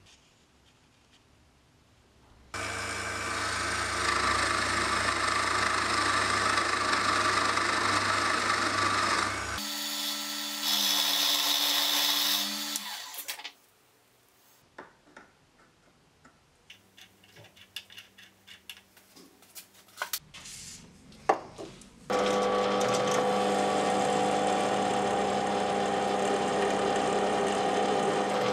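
Workshop power tools running in turns, each for several seconds, with a few seconds of light clicks and taps between them. From about 22 s in, a drill press runs steadily as its bit drills into a steel bar clamped in a vise.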